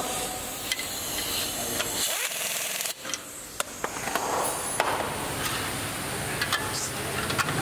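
Assembly-shop background noise with scattered light clicks and knocks of metal motorcycle parts being handled.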